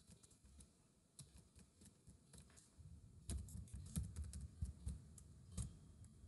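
Faint typing on a computer keyboard: irregular key clicks, sparse at first and coming quicker and louder from about halfway through.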